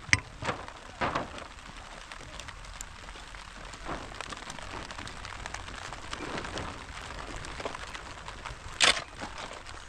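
Sharp cracking knocks, three in the first second or so and a louder one near the end, over a steady rustling hiss.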